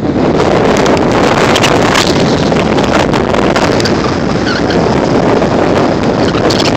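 Wind rushing and buffeting over the microphone in a moving car, with a loud steady rush of road noise underneath and frequent brief crackles from gusts.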